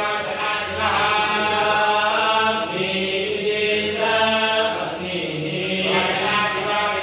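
A group of men chanting Vedic mantras in unison, in long held tones that step between a few pitches.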